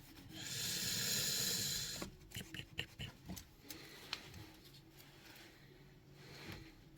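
A cloth being rubbed over a metal engine part to polish it: a steady rubbing hiss for about a second and a half near the start, then scattered light clicks and handling noises.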